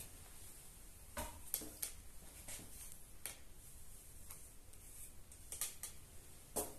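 Faint, scattered light clicks and rustles of hands handling a knife and a small folded piece of paper, about half a dozen short sounds spread out, the last one near the end slightly louder.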